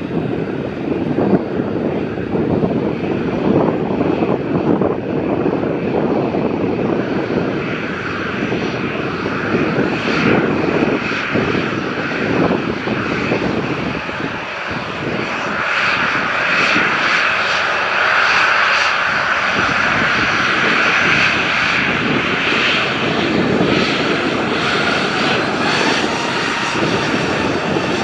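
Airliner engines running loud and close, a dense steady rush with a high whine that grows stronger from about halfway through.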